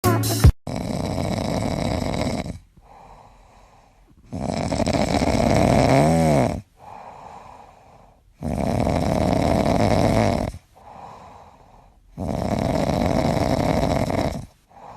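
Snoring: four long, loud snores about every four seconds, with quiet breaths between them, after a brief noise at the very start.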